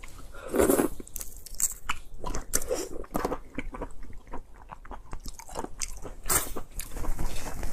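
Close-miked eating of raw red shrimp: wet smacking, biting and chewing with many sharp clicks, loudest about half a second in and again near the end.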